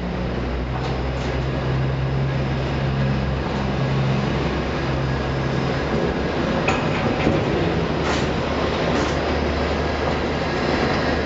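Steady mechanical rumble and low hum of a ship-to-shore container gantry crane's machinery, heard from up in the crane, with the hum shifting about four seconds in and a few sharp clicks in the second half.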